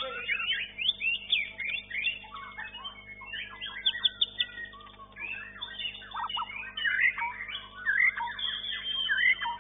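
A white-rumped shama (murai batu) singing a rapid, varied song of whistled sweeps and chattering notes, over a steady low hum.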